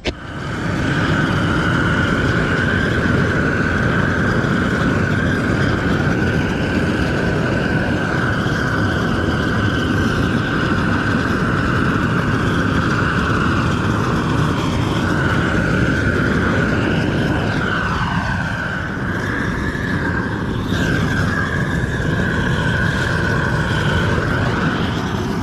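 Propane weed-burner torch (Weed Dragon) burning steadily as it chars a pine board: a loud, continuous rushing hiss with a steady whistling tone, coming up to full within the first second. In the second half the tone wavers and slides a few times.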